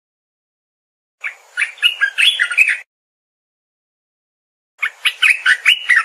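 Asian red-eyed bulbul singing: two phrases of quick, jumbled notes, each about a second and a half long, two seconds apart.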